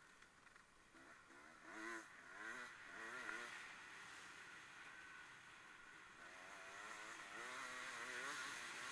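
Racing engines heard faintly at a distance, their pitch wavering up and down as they rev and lift off. Two passes stand out, one a couple of seconds in and one near the end.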